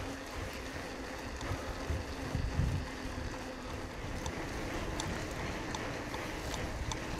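Wind rushing over a bike-mounted GoPro's microphone while the bicycle rolls along a gravel path, with steady tyre noise and a few small ticks in the second half.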